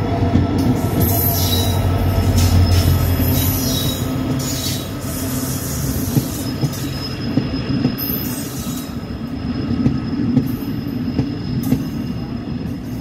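Indian Railways WDP4D diesel locomotive, with an EMD two-stroke engine, passing close by with a strong steady low engine drone for the first few seconds. Its passenger coaches then roll past with rumbling wheels, clicks over the rail joints and a thin wheel squeal.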